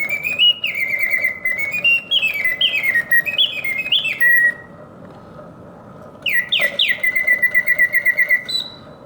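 Vintage Karl Griesbaum singing birdcage automaton, its mechanical whistle singing rapid warbling trills and stepped falling glides. It stops for about two seconds in the middle, then sings again. The break is the cage's built-in, cam-set pause, when the bird turns its head but does not sing.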